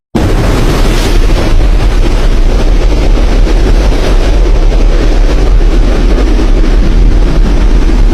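Storm wind buffeting the microphone: a loud, steady rushing noise with a heavy low rumble, starting abruptly after a brief break.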